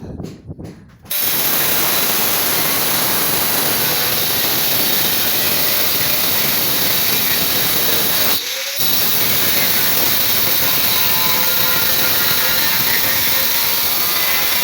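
A handheld power tool starts about a second in after a few light knocks and runs loud and steady, briefly easing off for a moment past the middle before running on.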